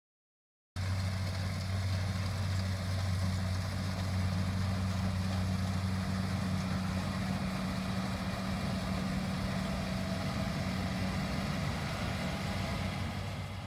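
Rice harvester's engine running steadily with a constant low hum. It starts about a second in after a brief silence and fades out near the end.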